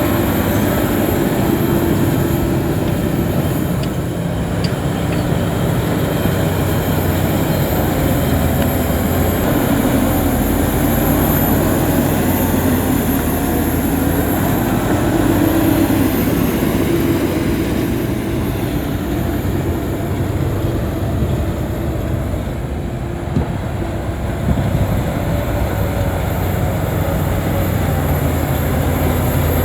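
Shantui crawler bulldozer working: its diesel engine runs steadily under load, with a dip in level around the middle.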